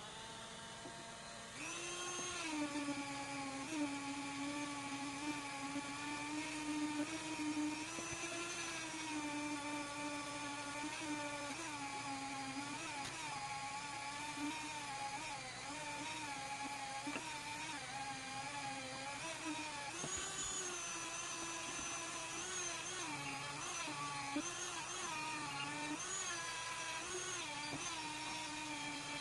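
Rotary tool (Dremel-type) with a felt polishing wheel buffing the steel shaft of a screwdriver: a steady high motor whine that gets louder about a second and a half in, then wavers slightly in pitch as the wheel works along the metal.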